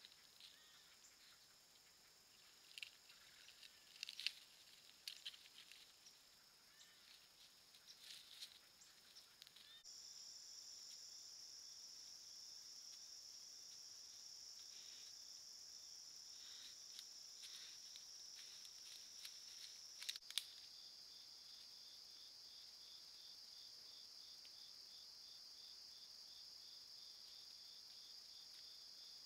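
Crickets and other night insects trilling steadily, with scattered clicks and rustles in the first half and a louder pair of clicks about two-thirds in. The insect chorus shifts abruptly about a third of the way in, and from about three-quarters in a second insect adds a rapid, evenly pulsing call.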